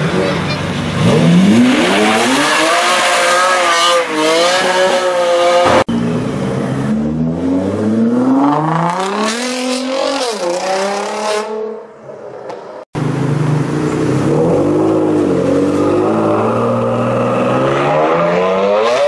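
Supercar engines revving hard and accelerating, their pitch climbing through the gears, in three spliced clips that cut off abruptly about six and thirteen seconds in.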